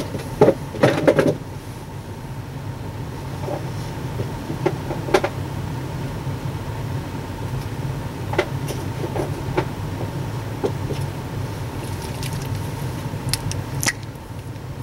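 Steady low hum with a few knocks in the first second or so and scattered light clicks after.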